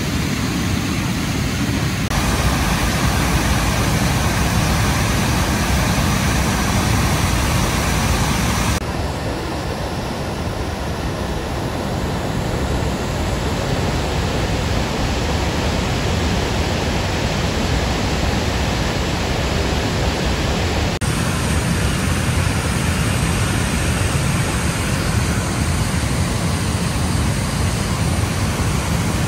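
Gooseberry Falls in high spring flood, a steady loud rush of water pouring over rock ledges, with its tone shifting suddenly a few times.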